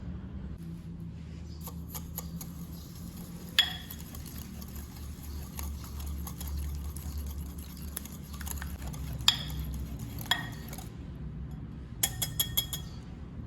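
Kitchen utensils clinking against dishes: single sharp clinks about three and a half seconds in and twice around nine to ten seconds, then a quick run of several clinks near the end.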